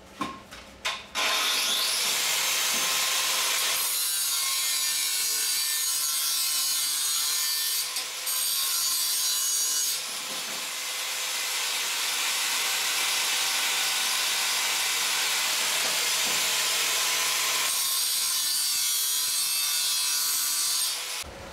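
Angle grinder grinding down the weld build-up on the fingers of a motorcycle clutch basket, to bring the slots back to size. The disc grinds steadily, with short breaks about 8 and 10 seconds in, after a few knocks at the start.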